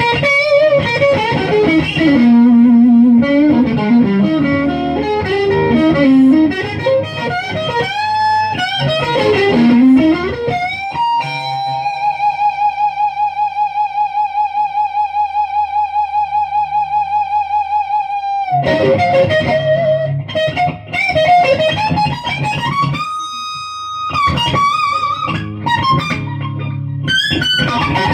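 Rushmore Firebird-style electric guitar with a brass bridge, played through an amp on its neck pickup: quick single-note runs and bends, then a long sustained note with wide vibrato from about 12 to 18 seconds in, before the runs resume.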